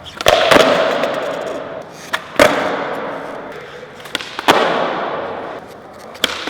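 Skateboard tricks: three times the board clacks twice, a pop and then a landing, and each time the rolling wheels rush on and fade away.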